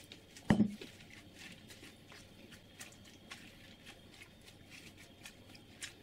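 A single thump about half a second in, then faint wet squishes and soft clicks as hands press gauze-covered cucumbers down into brine in an enamel pot.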